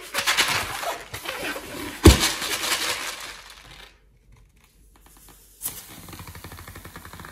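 A long rubber balloon handled over a glass bowl: dense rustling and rubbing noise, with one sharp thump about two seconds in. After a short lull, a click and then a softer, steady rubbing noise near the end.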